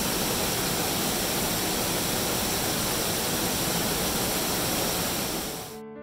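Rushing water of a waterfall and mountain stream, a loud steady rush. It cuts off suddenly near the end, where piano music starts.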